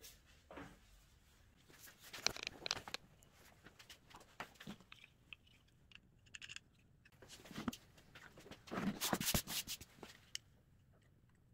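Handling noise from small wooden parts of a plywood hand planer: light clicks, knocks and short scraping bursts as a wooden knob is fitted and screwed onto its bolt. The loudest bursts of scraping come about two seconds in and again near the end.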